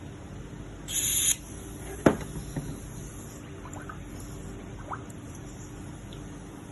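Small parts being handled: a brief scraping hiss, then a sharp click and a few lighter ticks, over a steady low hum.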